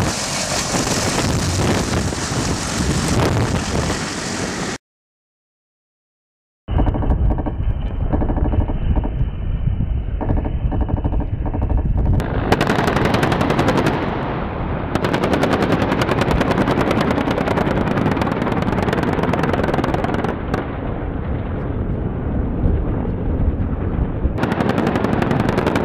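Helicopter rotor noise in separate cuts. First a CH-53E Super Stallion hovering low, its rotor wash buffeting the microphone like strong wind. After a clean silent gap of about two seconds comes a helicopter in flight, its rotor beating in fast, regular, sharp blade slaps.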